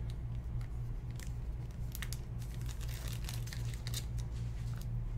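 Foil trading-card pack and clear plastic wrapping crinkling in the hands in scattered short crackles, over a steady low hum.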